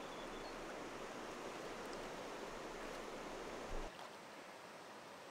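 Flowing river water over stones, a steady rushing noise. A brief low thump comes just before four seconds in, after which the water sound is quieter.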